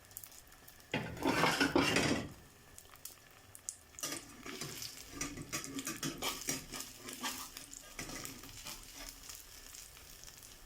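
Egg, tomato and onion mixture frying in oil in a pan: a loud burst of sizzling about a second in, then steady crackling sizzle with small clicks of a utensil against the pan.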